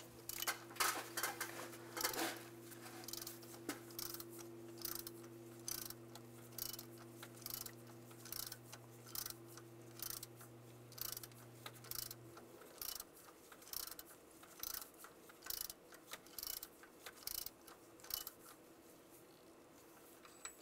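Hand ratchet clicking in repeated back-and-forth strokes as it runs a 1-1/16 inch socket, tightening a threaded oil pressure sender into the engine.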